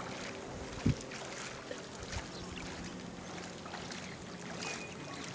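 Lake water lapping and splashing gently against jetty pilings and a floating pontoon, with a single low thump about a second in.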